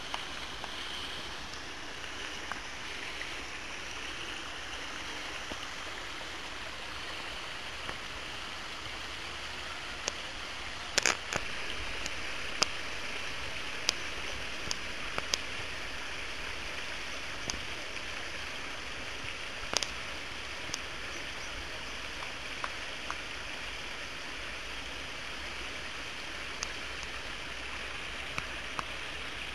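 Steady rush of running water, with scattered sharp clicks, the loudest about eleven seconds in.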